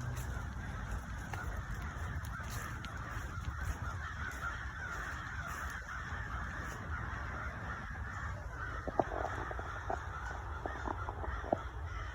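A large flock of birds calling all at once: a dense, continuous chatter with no single voice standing out, and a few sharper calls near the end over a low steady rumble.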